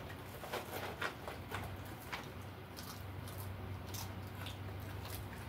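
Faint clicks and smacks of people chewing and picking apart fried chicken with their fingers, scattered irregularly, over a steady low hum.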